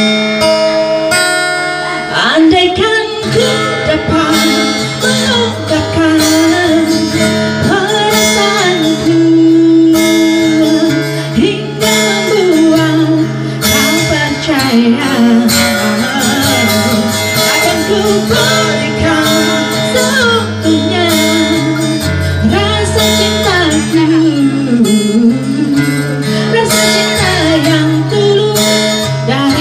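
Acoustic guitar accompaniment played through a PA. About two seconds in, a woman's amplified singing voice comes in and carries a slow ballad melody over the guitar.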